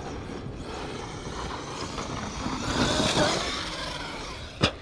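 Electric 1/8-scale RC car running over loose dirt. The motor and tyre noise swells to a peak about three seconds in and then fades, as the car passes, and there is one sharp click near the end.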